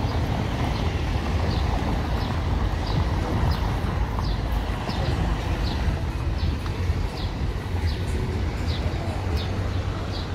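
Outdoor street ambience: a steady low rumble of traffic and wind on the microphone, with a short high chirp recurring about twice a second.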